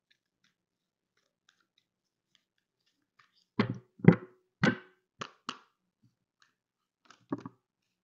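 A deck of cards being shuffled by hand: quiet at first, then a quick run of about five sharp card slaps and flicks a little after halfway, and two more near the end.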